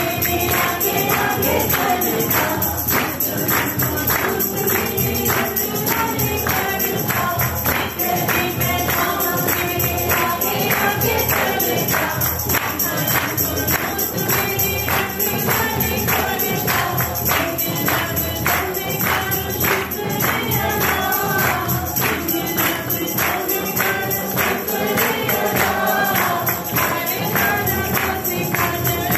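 Congregation singing a gospel hymn with a woman's voice on a microphone, accompanied by keyboard and a tambourine keeping a steady beat.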